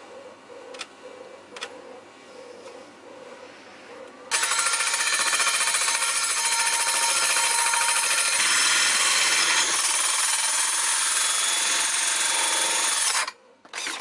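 Cordless drill spinning a hole saw that cuts through the edge of an electric skateboard deck: a loud, steady cutting whine starting about four seconds in, lasting about nine seconds and stopping abruptly, then one brief second burst near the end. A few light clicks come before the cut.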